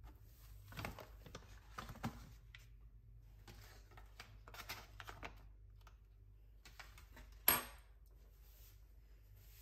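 Kitchen handling sounds: a paper flour bag rustling and being set down, then light clicks and taps as butter cubes are lifted off their foil and dropped into a glass bowl of flour. About seven and a half seconds in, a steel knife is set down on the worktop with one sharp clack, the loudest sound.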